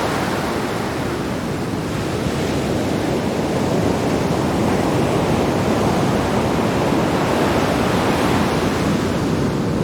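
Sea waves breaking on rocks: a continuous rushing surf with wind on the microphone, swelling slightly near the end.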